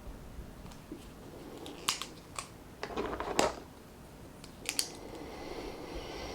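Paper handling at a desk: a book page turned with a short rustle about three seconds in, amid a few small sharp clicks and taps.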